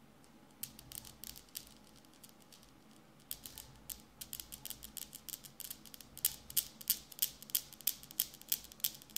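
Newton's cradle metal balls clacking as a cat bats at them: irregular clicks at first, settling about six seconds in into a steady swing of about three clacks a second.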